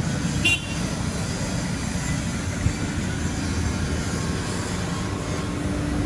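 Industrial machinery running with a steady low drone. A brief high squeak comes about half a second in, and a steady low hum joins near the end.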